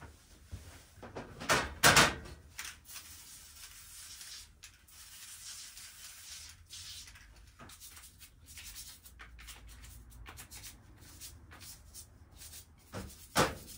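Bicycle pedals being cleaned in a stainless-steel tray: loud knocks about two seconds in and again near the end, a hiss of sprayed cleaner, then small clicks and rubbing as they are scrubbed.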